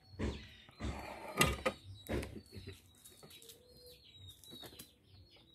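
Small birds chirping, with several short scuffs and knocks in the first two seconds.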